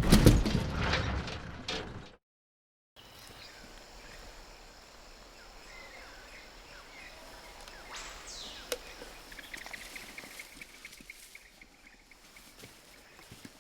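Two separate film sound effects: a loud crashing burst that lasts about two seconds and cuts off, then after a moment of silence a quiet outdoor nature ambience with scattered bird chirps and, from about the middle, a steady high trilling call that goes on for a few seconds.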